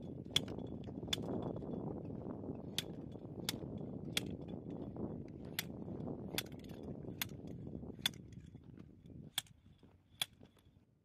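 Metal grounding rod being driven into the ground with a slide-hammer driver: about eleven sharp, ringing metal-on-metal strikes, roughly one every three-quarters of a second with a few short pauses, over a low steady noise that fades out near the end.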